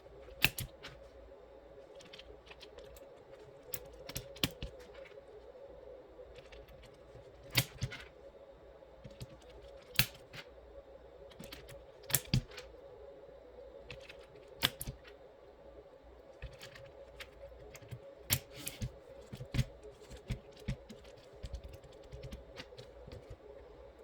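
Irregular sharp plastic clicks and snaps from hands working on a hot-swap mechanical keyboard during a switch swap, with a second or two between them, over a steady low hum.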